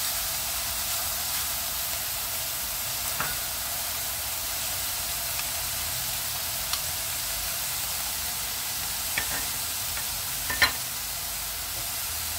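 Ground lean pork and chopped wood ear mushrooms sizzling steadily in a metal frying pan as they are stir-fried, with a few light taps and scrapes of a wooden spatula and chopsticks against the pan, the sharpest one near the end.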